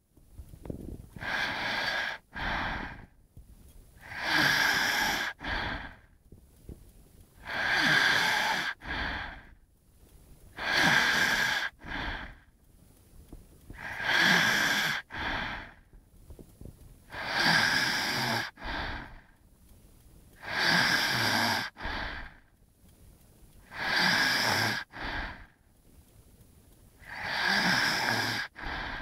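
Snoring in a steady rhythm: about nine breaths, one roughly every three and a half seconds. Each is a long noisy breath followed by a shorter one, with a quiet pause before the next.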